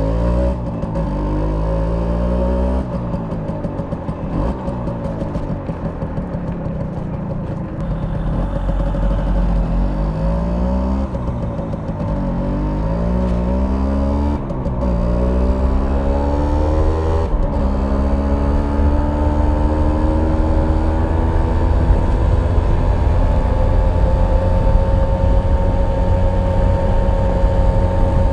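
Stock exhaust of a 1991 Simson S51B 50cc two-stroke moped under way. The engine revs climb and drop back several times as it pulls through the gears, then settle into a steady high-pitched run at cruising speed for the last third.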